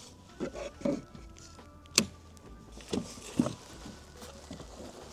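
A few scattered knocks and taps on a kayak, with one sharp click about two seconds in, as a dog shifts about on the boat.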